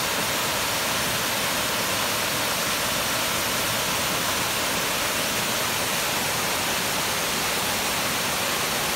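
Water of a small mountain-stream waterfall cascading over rock ledges: a steady, unbroken rushing hiss.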